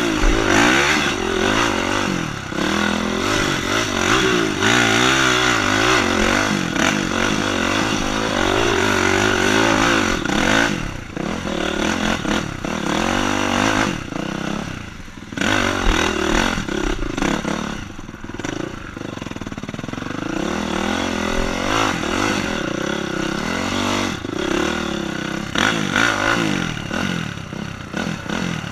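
Honda CRF dirt bike's four-stroke single-cylinder engine revving up and down with the throttle through a woods trail, easing off briefly a few times, with rattle from the bike over rough ground.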